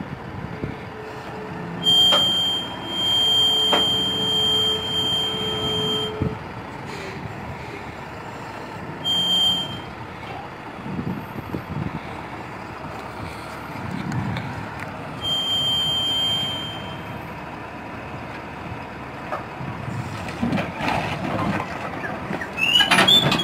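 A heavy tow truck runs with a steady low rumble while a high, steady warning tone sounds three times: for about four seconds starting about two seconds in, briefly near the middle, and again for about two seconds later on.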